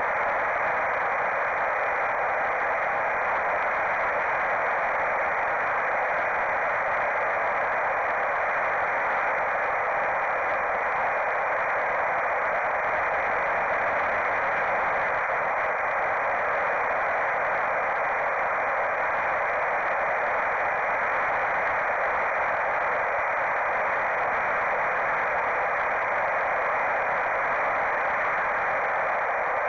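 Steady, even hiss of static from an analog FPV video link's audio channel, which carries the onboard camera's microphone; no motor or propeller sound stands out.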